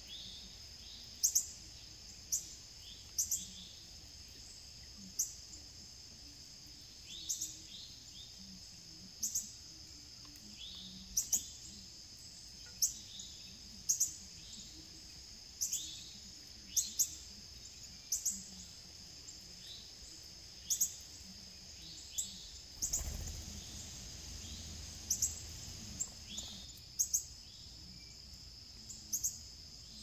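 Wild songbirds chirping, with short, sharp calls every second or two, some sliding down in pitch, over a steady high insect drone. A low rumble swells for a few seconds past the middle.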